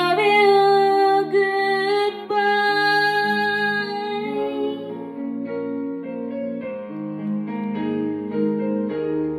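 A woman singing a long held note into a karaoke microphone over a piano-and-keyboard ballad backing track. Her voice stops about four seconds in and the instrumental carries on.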